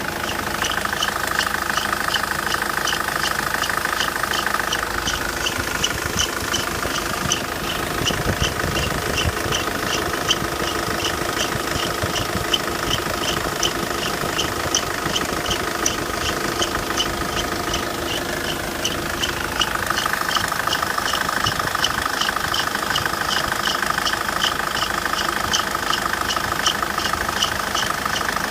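Car engine idling with a drive-belt whistle, the sign of a slipping belt. The high whistle is strong at first, fades after a few seconds, then comes back with a rising pitch about two-thirds of the way through, over an even, regular ticking.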